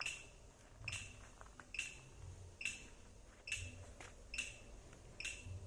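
A faint, short, sharp beep or chirp repeating evenly, a little more than once a second.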